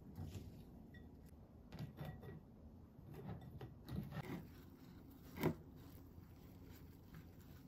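Faint rustling of a paper towel being peeled off a block of drained tofu in a glass bowl, with small handling knocks and one sharper knock about five and a half seconds in.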